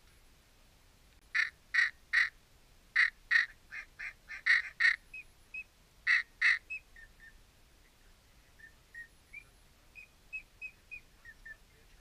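Duck quacking: a run of loud, short quacks in quick succession, then softer, shorter quacks trailing off over the last few seconds.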